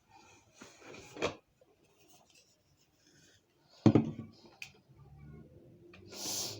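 Products being handled: scattered rustling and scraping, with a sharp knock about four seconds in and a short hiss near the end.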